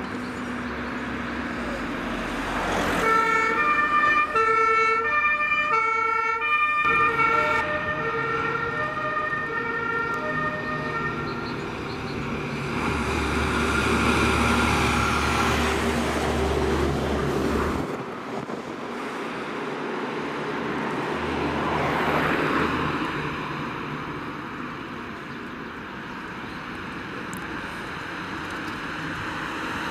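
German two-tone emergency siren (Martinshorn) switching back and forth between two pitches for about eight seconds, starting about three seconds in. Heavy emergency trucks' diesel engines then drive past with a low rumble, loudest around the middle and again a little later.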